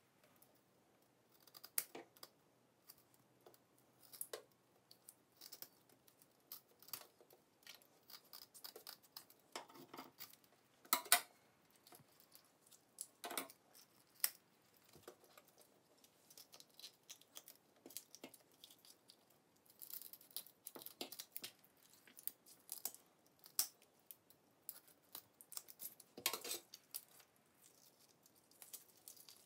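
Kitchen scissors snipping through the bellies of whole horse mackerel, with wet clicks as the fish are handled and gutted in a stainless steel sink: faint, scattered, irregular snips, a few louder ones a little before and after the middle.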